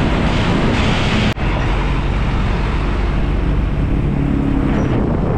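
Road noise from riding a motorbike in busy traffic: a steady rush of wind and engines from the bike and the surrounding vehicles. The sound drops out sharply for an instant about a second in.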